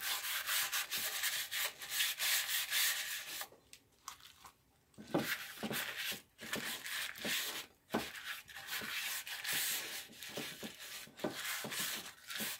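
A loaf pan being greased by hand, a wad of paper rubbed briskly over its inside in quick scratchy strokes. There is a pause of about a second and a half roughly four seconds in.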